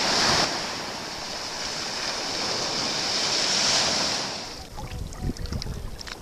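Sea water washing for about four and a half seconds, then dying down to quieter lapping with small knocks and low thumps.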